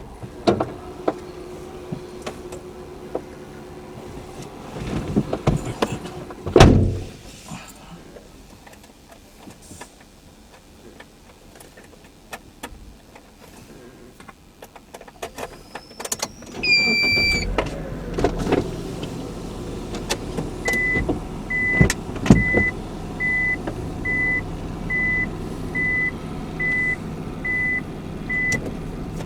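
Car door clunks, then a short dashboard chime and the car's engine starting and idling steadily. A warning beep repeats evenly, a bit faster than once a second, for several seconds over the idle.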